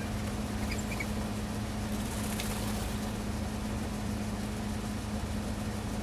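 A steady low hum with a constant droning tone runs throughout. A few faint, short bird chirps come about a second in.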